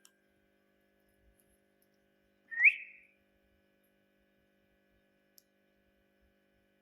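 Pet parrot giving one short, rising whistle about two and a half seconds in.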